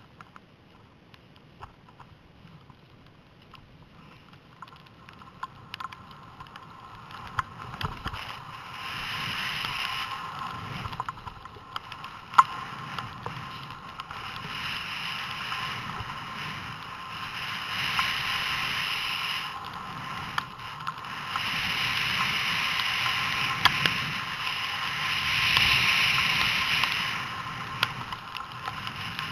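Skis hissing and scraping over snow on a downhill ski run, picked up by a helmet-mounted camera. It is quiet for the first several seconds, then louder from about eight seconds in, swelling and fading in waves, with a few sharp clicks, the loudest about twelve seconds in.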